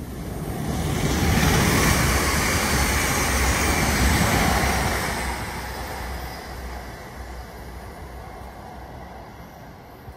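Container freight train rolling past on its wagons, a rushing rattle of wheels on rail that swells about a second in, holds loud for several seconds, then fades away.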